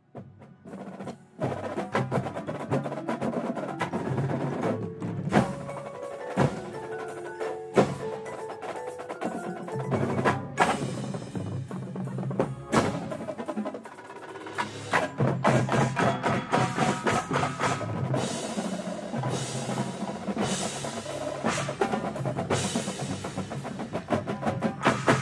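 Marching drum corps percussion feature: snare drums, tenor drums and pitched bass drums playing fast, dense rhythmic patterns with front-ensemble mallet keyboards adding pitched notes. It starts about a second in after a near-quiet moment.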